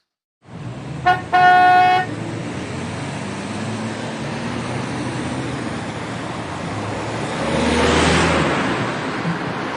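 A car horn sounds about a second in, a short toot followed by a longer held honk, and then steady traffic noise follows, with a vehicle passing close near the end.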